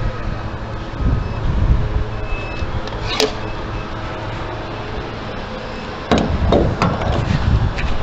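Fuel pump nozzle handled: a sharp clack about three seconds in as it comes off the pump, then several knocks and scrapes near the end as it goes into the car's filler neck, over a steady low hum.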